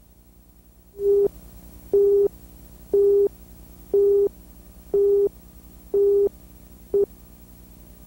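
Electronic beep tones, one short steady beep each second, seven in all, the last one cut short, like a videotape countdown leader, over a low steady hum.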